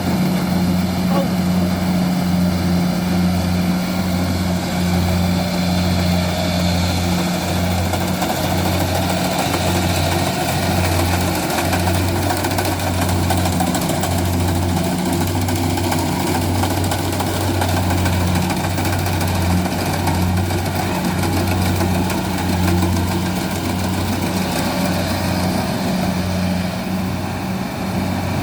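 Kubota combine harvester's diesel engine running steadily under load, with a low hum that pulses about once a second over the clatter of the machine.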